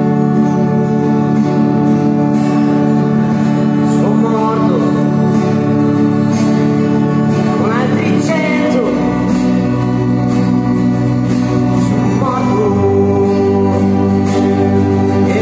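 Live church music: an organ holds slow, sustained chords while an acoustic guitar is strummed and a man sings a slow song. The voice comes in about four seconds in, and the organ's bass note changes twice.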